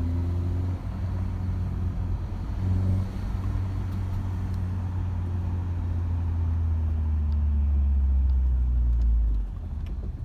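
Turbocharged 1.6-litre four-cylinder Mini Cooper S engine running under way while driving, with an Alta diverter-valve spring fitted. The engine note builds gradually over several seconds and then drops off suddenly about nine seconds in.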